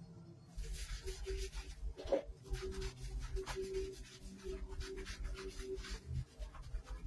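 Hands scrubbing soapy lather into a wet dog's coat: repeated rubbing strokes starting about half a second in.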